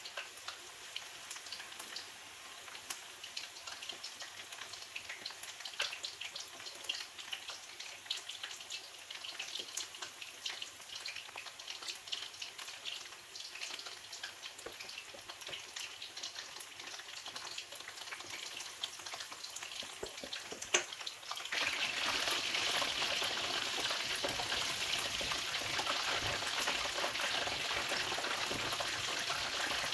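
Chicken frying in hot oil, first as scattered popping and crackling. After a single knock about two-thirds of the way in, the sizzle suddenly turns louder and denser and keeps going as a steady hiss.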